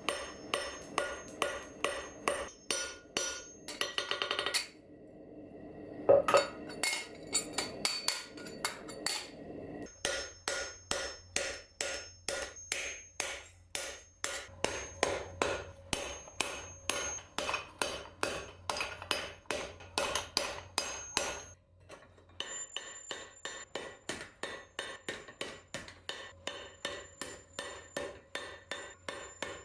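Blacksmith's hammer beating steel, forging a cup-shaped dome: a steady run of ringing metal blows, about two to three a second, broken by short pauses about four seconds in and near twenty-two seconds in.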